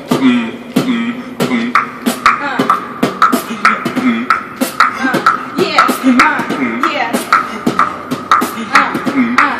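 Beatboxing: a steady beat made with the mouth, sharp snare and kick sounds about two to three a second mixed with short pitched vocal notes.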